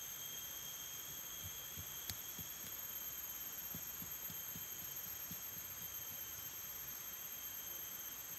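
Soft, irregular low knocks of a machete blade working thin plant stems as they are split into fine strips, with one sharper click about two seconds in. A steady high-pitched drone of forest insects runs underneath.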